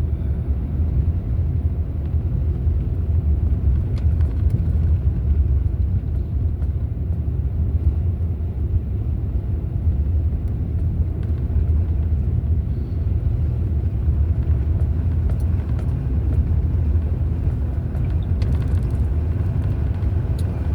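Road and engine noise heard from inside a vehicle driving slowly on a snow-covered road in four-wheel drive: a steady low rumble.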